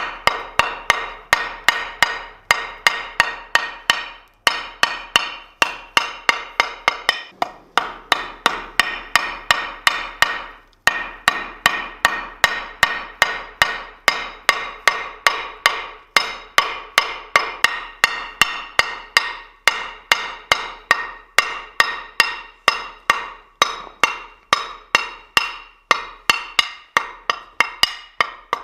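Hand hammer striking a red-hot steel bar on a steel plate resting on an anvil of ice, about three blows a second, each blow ringing. Brief pauses every few seconds break the hammering.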